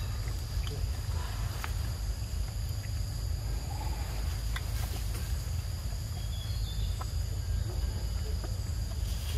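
Outdoor ambience: a steady, high insect drone over a constant low rumble, with scattered soft clicks and a couple of faint short chirps.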